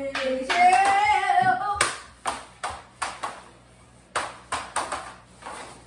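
A voice calls out briefly in a sing-song pitch, the loudest sound. It is followed by a run of about ten sharp clicks of a hockey stick knocking a ball and the hardwood floor in mini-stick play.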